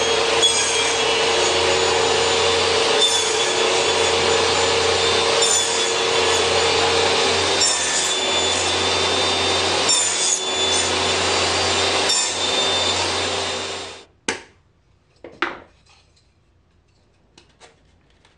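Homemade table saw running and cutting a row of box-joint finger slots in a wooden board held in a box joint jig, the cut changing slightly about every two seconds as each slot is cut. The saw stops suddenly about 14 seconds in, followed by a few light wooden knocks.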